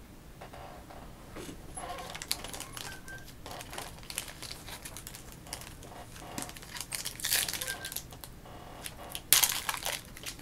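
Foil trading-card pack wrappers crinkling and tearing as hockey card packs are opened and the cards handled, in irregular rustles and clicks, with a louder burst of crinkling about nine seconds in.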